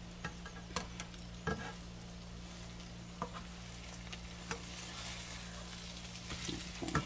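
Salmon croquettes sizzling as they fry in oil in a pan, with a slotted metal spatula clicking and scraping against the pan several times as they are turned over.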